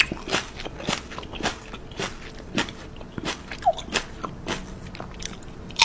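Crunchy food being bitten and chewed close to the microphone: a run of sharp, irregular crunches, two or three a second.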